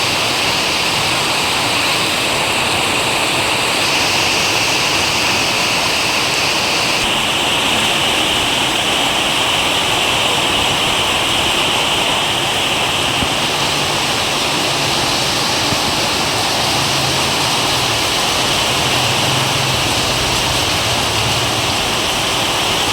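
Heavy rain pouring steadily, a loud unbroken hiss of falling water.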